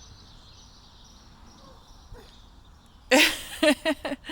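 Faint, steady outdoor background with a thin high hiss, then, about three seconds in, a few short loud bursts of a person's voice, high-pitched and wordless.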